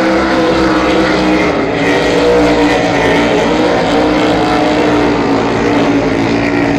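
Cracker Box inboard race boats running flat out on the course, a loud, steady engine drone whose pitch drifts slowly up and down.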